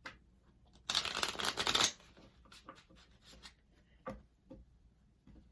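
Tarot deck being shuffled: one quick burst of riffling cards lasting about a second, followed by a couple of soft taps.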